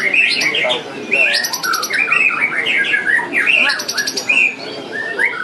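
White-rumped shamas (murai batu) singing loud, varied song. Whistled phrases overlap one another, with fast, high rattling trills about a second in and again near four seconds.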